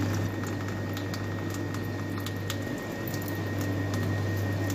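Water draining from an ice machine's sump into a bucket, a wet patter over a steady low hum.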